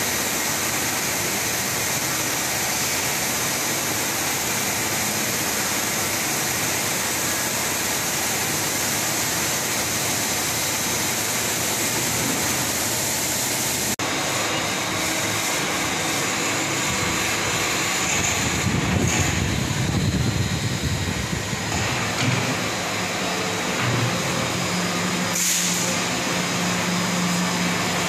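Steady, loud rushing noise of running foundry machinery, with fans and motors around a cupola furnace. It changes abruptly about halfway through, a deeper rumble swells a few seconds later, and a low steady hum sets in near the end.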